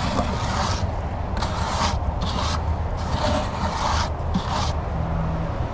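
Repeated rasping scrapes, about six strokes, of a tool or hand working wet concrete in a plastic fountain mold.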